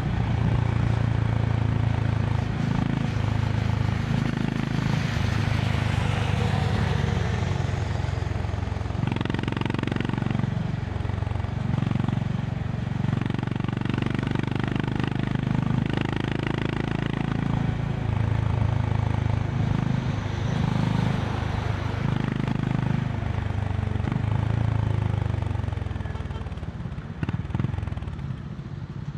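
Honda CB350 RS single-cylinder engine running at highway speed with wind noise, its pitch rising and falling with throttle changes; it gets quieter near the end as the throttle eases off.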